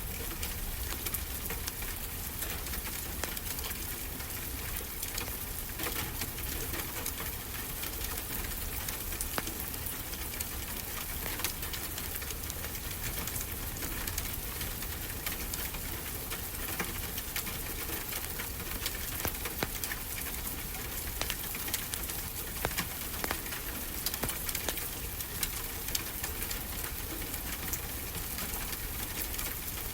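Fireplace crackling, with many small irregular pops, over a steady low wash of ocean surf.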